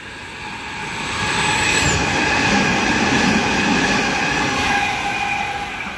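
Sydney Trains H-set electric double-deck train passing through the station at speed without stopping. It is a rushing wheel-and-rail noise with steady whining tones that swells over the first couple of seconds and fades toward the end.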